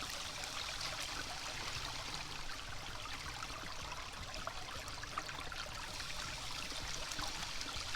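Creek water running steadily through a sluice box, with faint scattered ticks.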